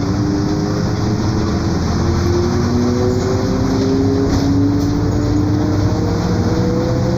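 Mercedes-Benz OF-1721 BlueTec 5 bus under way, its diesel engine running under a whine from the differential that rises slowly in pitch as the bus gathers speed. The differential is growling, the sign of a worn rear axle.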